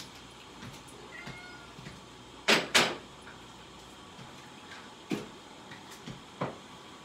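Two sharp knocks in quick succession about two and a half seconds in, followed by three lighter taps, with a faint brief high-pitched sound before them.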